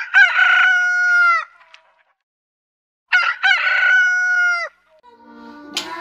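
Rooster crowing twice, about three seconds apart: each crow is a long call that holds its pitch and then drops off at the end.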